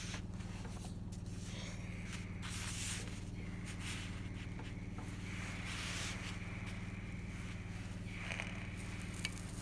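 Clothes iron pressing and sliding along a folded fabric strip on an ironing board, making a scraping hiss that swells and fades several times over a steady low hum.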